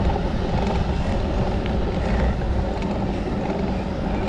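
Steady wind and road rumble on a cyclist's camera microphone while riding a bicycle, a dull continuous noise with no distinct events.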